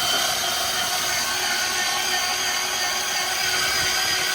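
Nissan Titan V8's starter motor cranking the engine fast and evenly with the spark plugs out. It makes a steady whirr with no firing, while the plugs, left in their coil packs, are checked for spark on the no-start engine.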